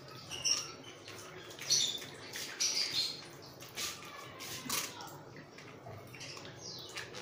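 A spoon scraping and clicking against a small steel mesh strainer, pressing blended watermelon pulp through it to sieve out the seeds. A few short high squeaks come through among the scrapes.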